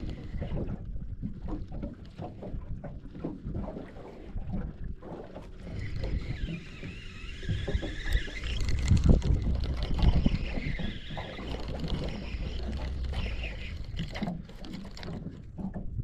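Small water waves lapping and knocking against the hull of a small boat, with wind on the microphone; the lapping grows louder about halfway through.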